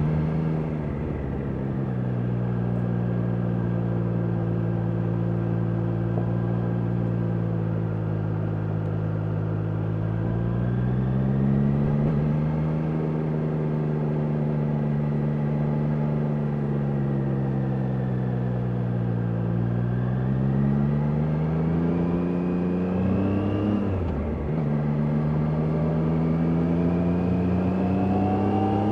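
Triumph Daytona 660's inline three-cylinder engine pulling the bike along, its pitch holding steady for long stretches, rising and easing off with the throttle. About 24 seconds in the pitch drops sharply, as at an upshift, then climbs again.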